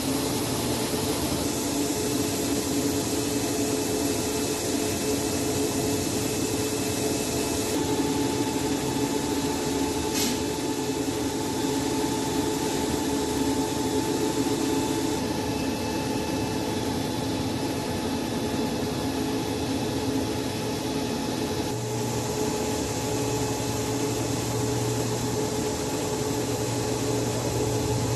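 High-speed film slitting and rewinding machine running steadily: a constant motor hum with several steady tones over an even hiss, and a single sharp click about ten seconds in.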